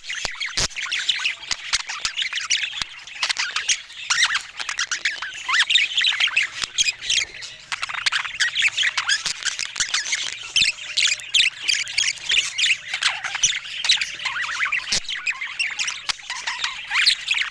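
A group of budgerigars chattering and warbling without a break: many overlapping short chirps, squawks and quick pitch glides, with a few sharp clicks.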